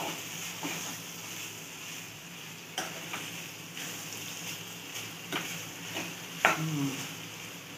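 A steel spatula stirring and scraping dry-fried chicken around a non-stick kadhai, with a steady sizzle from the pan and a few sharper scrapes of the spatula against the pan.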